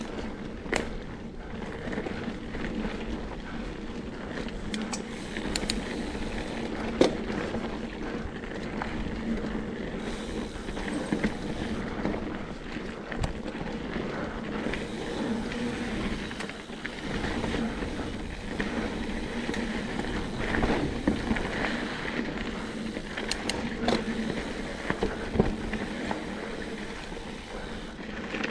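Mountain bike rolling over a rough dirt trail: steady tyre and rolling noise, with frequent sharp knocks and rattles from the bike over bumps and roots.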